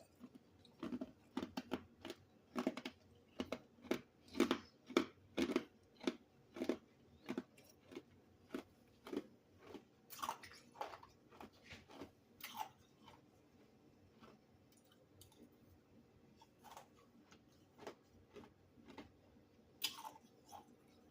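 Close-up chewing of crunchy freezer-frost chunks: a long run of sharp crunches, quick and loud at first, then sparser and softer.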